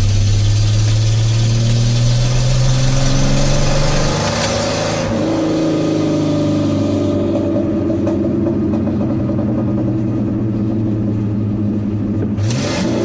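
Ford 300 (4.9 L) inline-six in a 1986 F-250, still cold, heard from inside the cab as the truck pulls away. Its pitch climbs for about four seconds, drops at a gear change, climbs again and then settles into a steady cruise. A short burst of rushing noise comes near the end.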